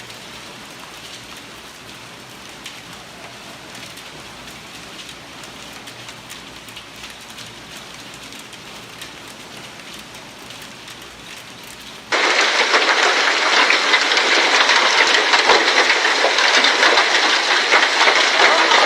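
Hailstorm: hailstones pelting down in a steady, rain-like rush with fine clicks of individual hits. About twelve seconds in, the sound jumps abruptly to a much louder, dense clatter of stones hammering.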